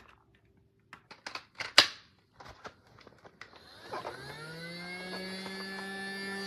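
Several plastic clicks as a Casdon Dyson toy cordless vacuum is handled and switched to another mode, then about four seconds in its small battery-powered motor starts, rising in pitch and settling into a steady whine.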